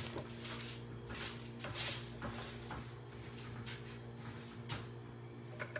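Spatula scraping and turning ground falafel mixture against the sides of a food processor bowl: a string of short, irregular scrapes and rustles over a steady low hum.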